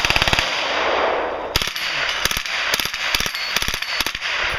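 M16 rifle with a .22LR conversion firing a rapid fully automatic burst that stops about half a second in, followed by scattered single gunshots.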